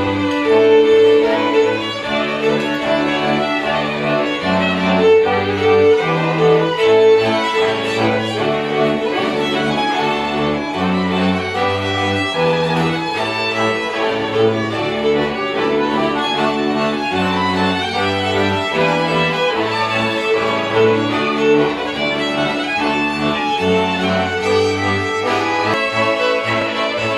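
Live folk band playing highlander-style folk music: three violins carry the tune over an accordion, with a cello playing a stepping bass line underneath.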